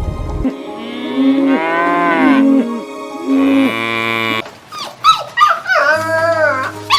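Cow mooing: two long calls that rise and fall in pitch. From about four and a half seconds in, a run of short, sharp calls follows, over soft background music.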